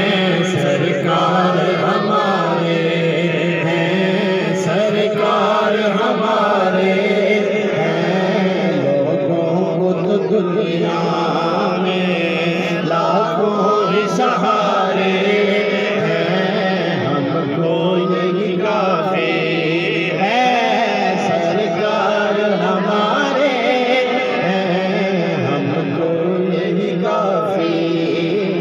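A man singing a devotional naat in Punjabi/Urdu into a microphone, amplified, in a continuous melodic chant with long held, wavering notes.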